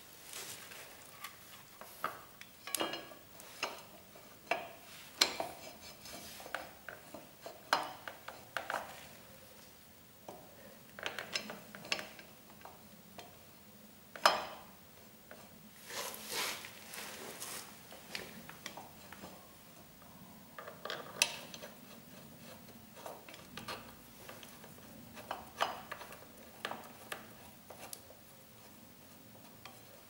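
Irregular metallic clicks, clinks and knocks as a motorcycle front brake caliper is handled, slid over the brake disc and worked on with a small tool. The loudest knock comes about halfway through.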